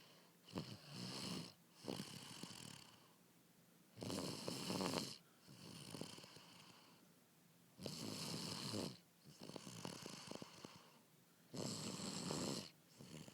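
A man snoring in his sleep: four loud snores about four seconds apart, each followed by a softer breath.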